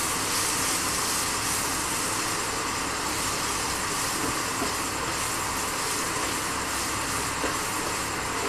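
Indian gooseberries (amla) cooking in hot spiced oil in a pan, a steady sizzle, while they are stirred with a wooden spatula.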